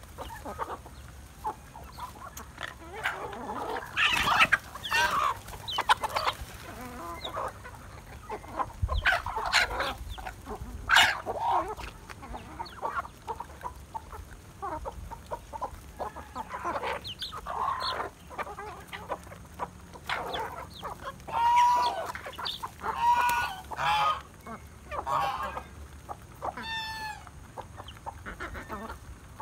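Chickens clucking as they feed in a mixed flock, with a run of louder calls about three-quarters of the way through.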